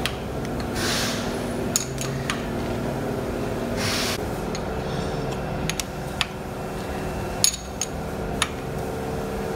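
A steel ring spanner clinking and scraping on a kart's brake line fittings as they are tightened. There are several sharp metallic clicks and two short rasping scrapes, about one second and four seconds in.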